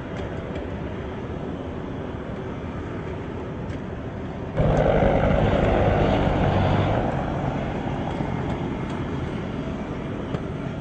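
M1A1 Abrams tank on the move, its gas-turbine engine running as the tracks roll. The noise jumps suddenly louder about halfway through, then eases back over the next few seconds.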